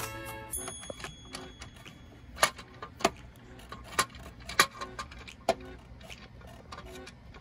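Sharp plastic-and-metal clicks and taps as a hinged plastic weatherproof outlet cover is handled and fitted onto an outdoor outlet box. There are about five loud clicks between two and six seconds in, with lighter taps around them.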